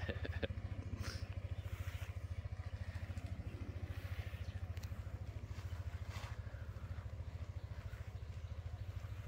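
Motor scooter engine idling, a steady low, rapidly pulsing putter, with a few light clicks and knocks over it.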